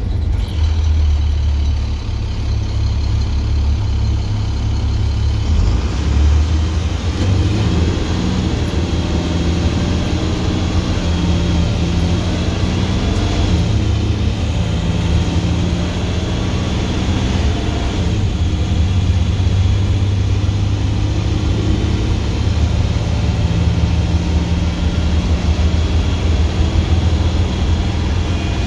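Straight-piped International DT466E inline-six turbo diesel of an IC FE bus running under way, heard from the driver's seat, a loud, steady deep exhaust note whose pitch rises and falls several times as the bus drives.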